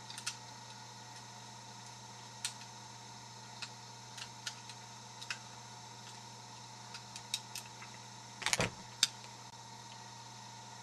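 Scattered small metallic clicks and ticks from a jackknife picking a rusty discus padlock with mushroom security pins, with a brief cluster of louder clicks about eight and a half seconds in. A faint steady hum runs underneath.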